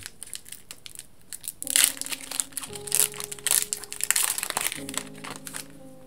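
Foil wrapper of a Pokémon booster pack crinkling as it is handled and torn open, in a run of crackles from about two seconds in that fades out near the end.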